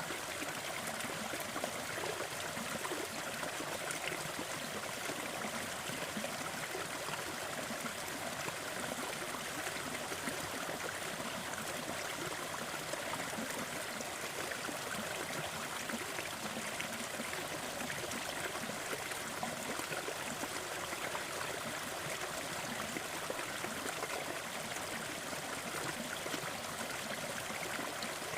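Small forest waterfall, a steady splashing rush of falling water.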